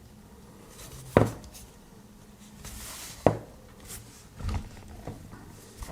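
Hands handling a plastic TV remote control while fitting its parts back together: two sharp clicks about two seconds apart, then a softer knock, over light handling noise.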